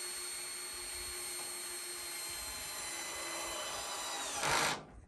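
Electric power drill running steadily. About four seconds in its pitch sags slightly and it gets louder, then it stops abruptly just before the end.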